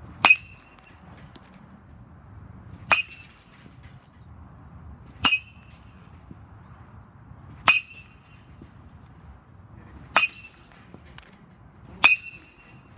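Metal baseball bat striking balls: six sharp cracks, about one every two and a half seconds, each with a brief high ping ringing off the bat.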